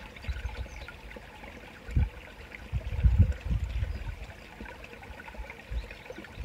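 Shallow stream trickling steadily, with a few low thumps about two and three seconds in.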